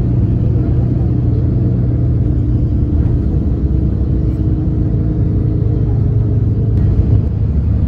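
A moving bus's engine drone with road noise, heard from inside the passenger cabin: a steady low hum that holds even throughout.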